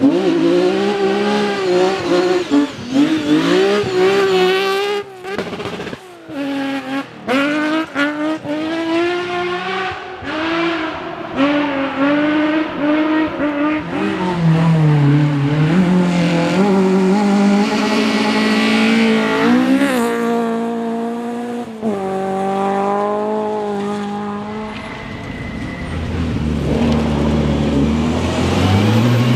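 Historic rally car engine revved hard, its pitch rising and falling through the gears, with several brief cut-outs in the first third where the throttle is lifted for shifts. A second, deeper engine builds near the end.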